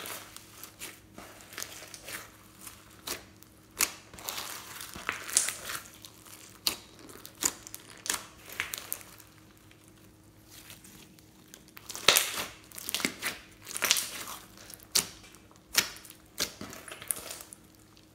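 Glittery slime mixed with floam beads being kneaded, squeezed and stretched by hand: irregular sharp pops and crinkly, crackling squishes in clusters, with a quieter lull in the middle.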